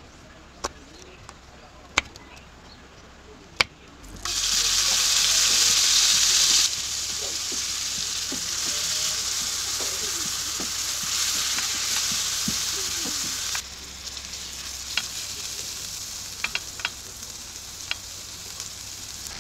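Food frying in a hot pan. A loud sizzle starts suddenly about four seconds in, is loudest for the first couple of seconds, then carries on steadily and drops lower about two-thirds of the way through. Sharp clicks and taps come before the sizzle and again near the end.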